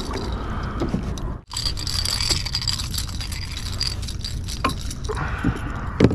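Metal fishing pliers and a plug lure's hooks rattling and scraping while the lure is worked out of a striped bass's mouth, with scattered clicks and knocks over a steady low rumble.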